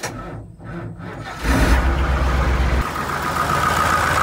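Engine sound that swells suddenly about a second and a half in, with a deep rumble, then runs loudly and steadily with a high tone over it.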